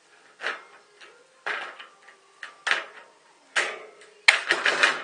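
Draper straight-cut tin snips cutting thin stainless steel sheet: a crunching snip about once a second, then a sharp click about four seconds in and a quick run of short snips near the end.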